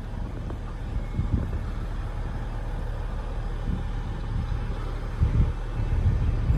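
Low, steady rumble of a DE10 diesel locomotive's engine moving slowly, with a few low knocks, about one second in and again around five seconds.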